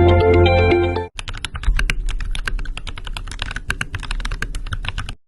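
Background music that cuts off about a second in, followed by rapid, irregular clicking of typing on a keyboard.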